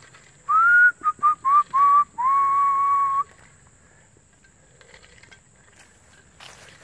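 A person whistling a short call: one rising note, four quick short notes, then a long held note, over about three seconds.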